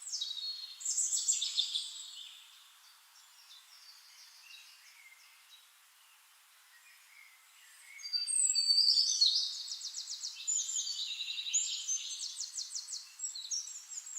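Songbirds singing and chirping: a burst of high song in the first two seconds, a quieter lull, then a louder stretch from about eight seconds in with fast trills of rapidly repeated notes.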